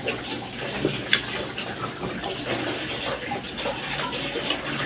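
Close-miked wet eating sounds: chewing and fingers picking apart vinegar-stewed fish (paksiw) on a wooden board, with scattered small clicks and smacks.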